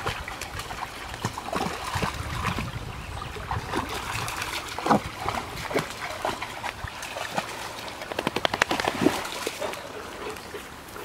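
A dog splashing through a shallow stream, over water trickling across stones, with short sharp splashes throughout and a quick run of them about eight seconds in.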